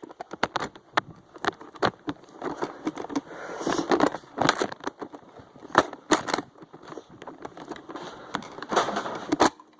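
Nerf foam-dart blasters being primed and fired, with darts striking: an irregular run of many sharp clicks and knocks, mixed with brief rustling.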